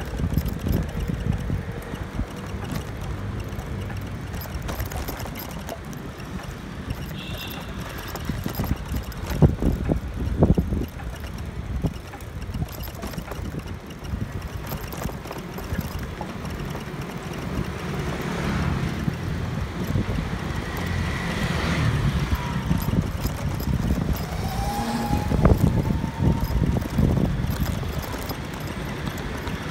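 Wind buffeting the microphone of a moving bicycle over city street traffic, with motor scooters and cars passing. There are two knocks about a third of the way in.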